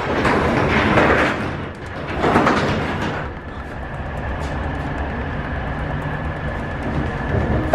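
Truck-trailer road noise heard from inside the cargo box: a low rumble with rattling, swelling louder twice in the first three seconds, then settling into a steady rumble with a faint high whine.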